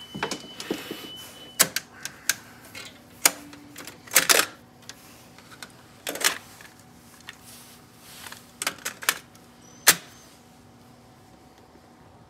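Sharp clicks and clunks of a Marantz 5220 cassette deck's transport keys and cassette door as the test cassette is taken out, flipped and put back in, a dozen or so separate knocks. At first a faint steady high test tone from the tape plays, stopping with a click about a second and a half in.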